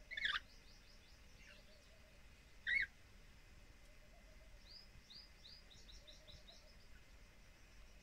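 Lorikeets calling: two short, loud, sharp calls about two and a half seconds apart. A faint run of quick falling chirps follows the first call, and another comes about five seconds in.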